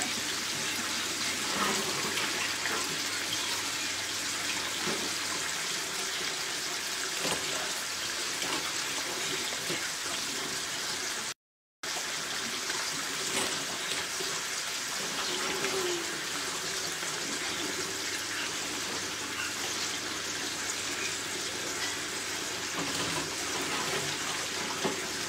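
Sardines frying in hot oil with garlic in a steel pan, a steady sizzle that cuts out for a moment about halfway through.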